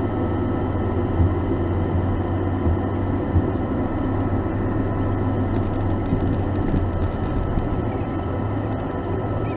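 Cabin noise inside a Boeing 737-800 taxiing, its CFM56 engines running at low power: a steady low hum with faint steady whining tones above it. A couple of light thumps come about a second and three and a half seconds in.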